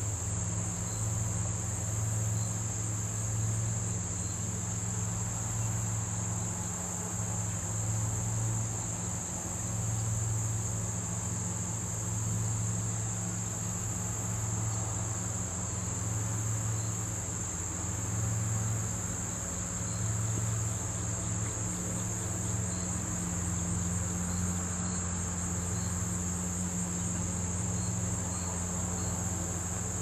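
Steady high-pitched chorus of crickets trilling without a break, over a steady low hum.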